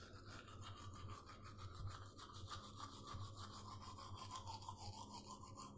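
Faint, quick, even scrubbing strokes of teeth being cleaned.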